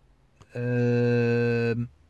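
A man's voice holding one low, steady hum for just over a second, starting about half a second in and dipping slightly in pitch as it stops.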